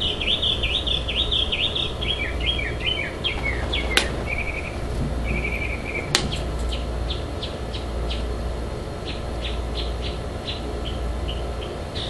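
Songbirds singing: a quick run of high chirps, then a few short trills, then scattered single chirps. Two sharp clicks, about four and six seconds in, over a steady low rumble.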